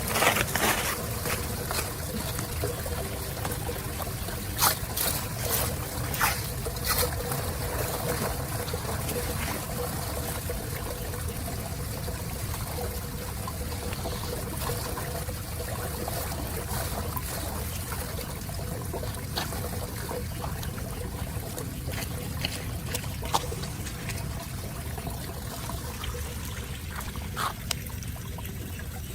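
Running water trickling and pouring steadily, with a few short sharp splashes or knocks scattered through it.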